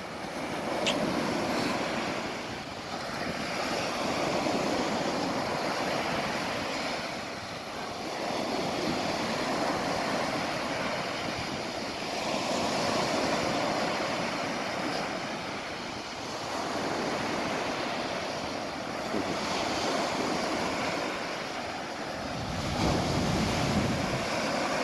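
Ocean surf breaking and washing up a sandy beach, the rush of water swelling and easing every few seconds.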